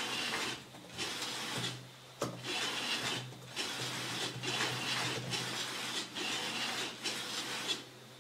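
A homemade 3D printer's carriages running a speed test, shuttling back and forth along steel rods with a rushing, rubbing mechanical noise. It comes in strokes of about a second with short breaks between them, about eight in all, over a steady low hum.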